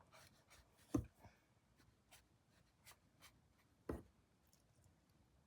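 Quiet paintbrush strokes and dabs on a rough, rock-textured canvas: a scatter of faint ticks, with two short, louder knocks about a second in and again near four seconds.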